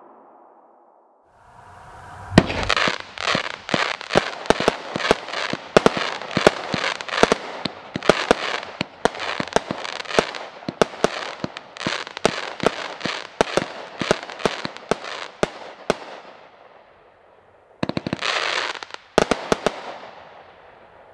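'Fighting Rooster' consumer fireworks cake firing a rapid run of shots: sharp bangs about two or three a second with crackling between them, for about fourteen seconds. It then dies away, and a short final flurry of bangs and crackle comes near the end.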